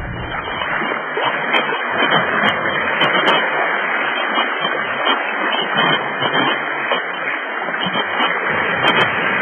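Sea waves washing and splashing over shoreline rocks: a steady rushing hiss with small swells in loudness.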